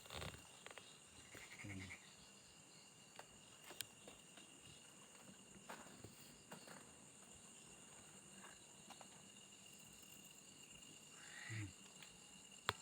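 Faint steady insect chorus, a continuous high trilling, with a few small scattered clicks and one sharp click near the end.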